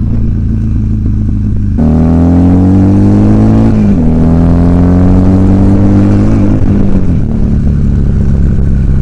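Buell motorcycle engine running steadily, then accelerating about two seconds in. Its pitch climbs, drops sharply at an upshift near the middle, climbs again and drops once more before settling.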